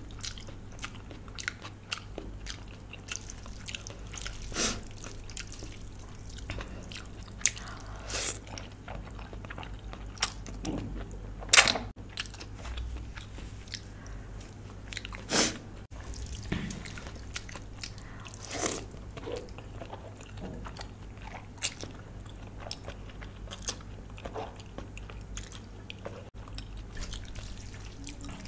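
Close-miked eating: a person chewing and biting, with irregular wet mouth clicks and smacks. The loudest come a little before halfway and again a few seconds later.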